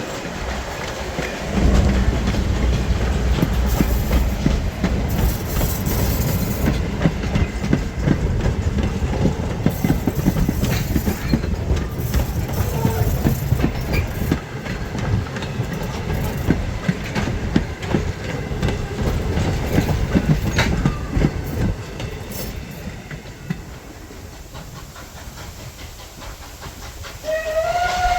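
A steam train rolling past, its wheels clicking steadily over the rail joints, fading as it moves away. Near the end, Canadian National No. 89's steam whistle, a Pennsylvania Railroad banshee whistle, starts to blow with a slight rise in pitch as it opens.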